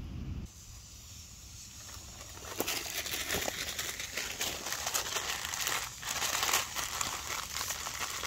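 Crinkling and crackling of a plastic instant-ramen noodle packet being handled and opened, with campfire crackle underneath.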